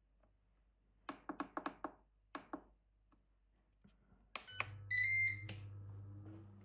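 Control panel of an air-fryer multi-cooker: a quick run of about half a dozen short clicking beeps as the temperature is stepped down from 200 to 180, then two more. About four seconds in, a click and a longer, higher beep as cooking starts, followed by the low steady hum of the fan running.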